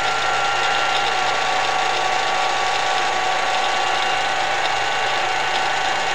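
Metal lathe running and cutting the cooling fins of a small machined radial-engine cylinder: a steady machine whine over a dense cutting hiss.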